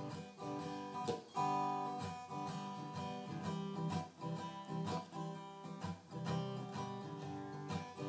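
Background music: acoustic guitar strumming chords.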